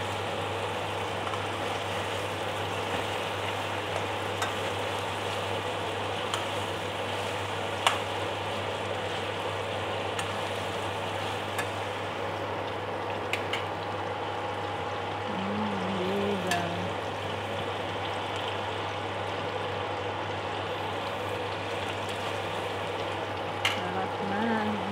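Chicken pieces for adobo sizzling as they fry in a pan, with an occasional sharp click of a metal ladle against the pan, over a steady low hum.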